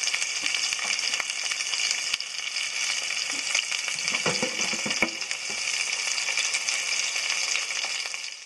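Venison burgers sizzling in a skillet on a hot stove: a steady frying hiss with small spitting crackles throughout.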